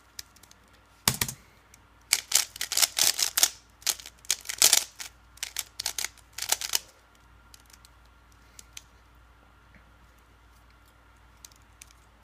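Rubik's Cube being turned fast by hand, plastic layers clacking in a rapid run of clicks from about a second in until about seven seconds, then just a few faint clicks.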